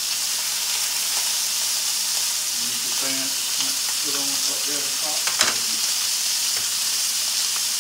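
Lamb chops searing in hot skillets, frying with a steady sizzling hiss. A single sharp click comes about five and a half seconds in.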